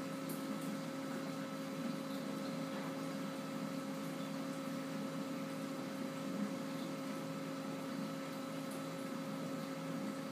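Steady hum of aquarium equipment, such as a pump, with a low hiss underneath and no change throughout.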